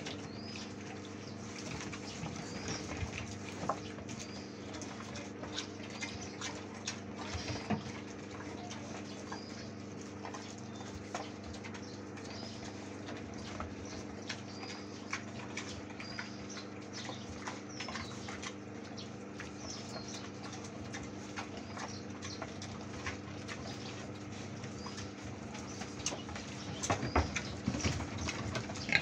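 A sow and her piglets chewing fresh greens: a steady patter of wet crunching and smacking, with faint high chirps recurring throughout. Near the end it grows louder and busier as the piglets jostle together.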